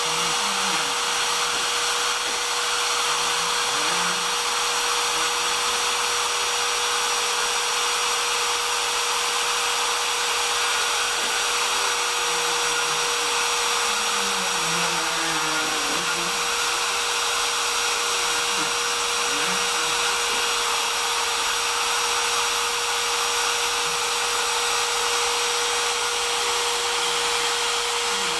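Home-built CNC router running on a test cut: the spindle motor gives a steady whine and hiss, while lower tones glide up and down in pitch over and over as the axis motors speed up and slow down.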